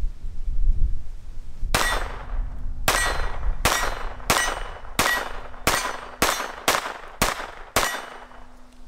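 Ruger LCP II Lite Rack .22 LR pistol fired unsuppressed, ten shots in quick semi-automatic succession, starting about two seconds in. Wind rumbles on the microphone before the first shot.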